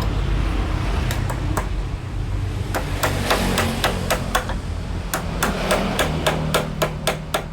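Hammer striking wood in a quick run of blows, a few about a second in, then steadily at about three to four a second, as a wooden door frame is knocked together.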